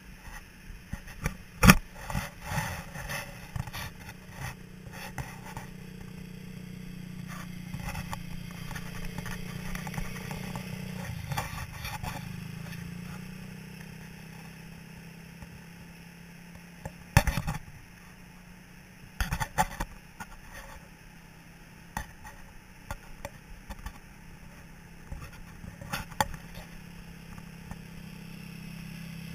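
A small vehicle engine running steadily on the beach, its pitch dipping for a moment about eleven seconds in and then picking up again. Sharp rattling knocks break in several times, loudest near the start and around the middle.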